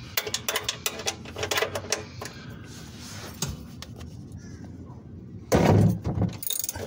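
Metal wrench clicking and clinking on a car's oil-pan drain plug as it is fitted and pulled on to loosen the plug. A louder scuffing burst comes about five and a half seconds in.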